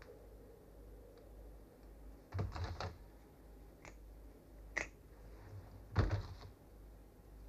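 Scissors snipping through a mink's front toe joints: a quick cluster of sharp clicks, two single snips, then another cluster near the end, over a faint low hum.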